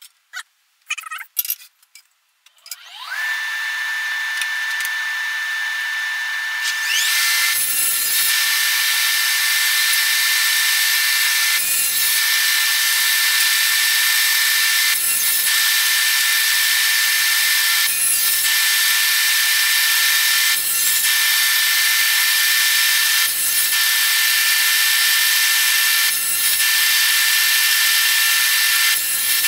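A Shopsmith's motor spins up with a rising whine about three seconds in, rises again a few seconds later, then runs steadily and loudly. Short low thumps come about every three seconds while it runs.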